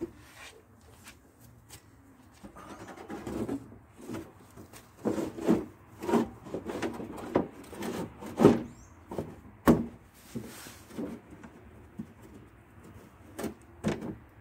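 Black plastic battery-box cover on a Scania 112 truck being worked back into place by hand: a series of irregular knocks, scrapes and clicks, with a sharp click about ten seconds in.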